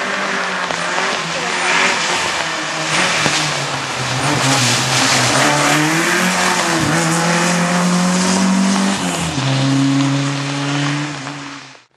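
Opel Corsa rally car's engine at full effort, its pitch rising and dropping through gear changes and holding high for a few seconds, over a wash of tyre and road noise. The sound cuts off abruptly near the end.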